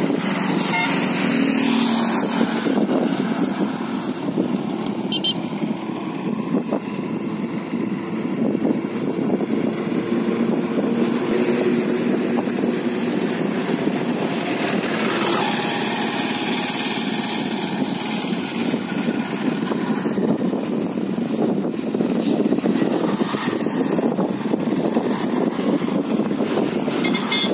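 Motorcycles riding past on a road, one passing close near the start and another about halfway through, over a steady rushing noise.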